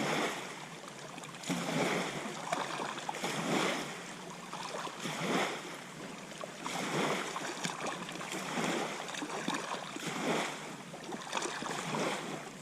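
Small waves lapping at the lake's edge, a wash of water that swells and fades in repeated surges about every second and a half.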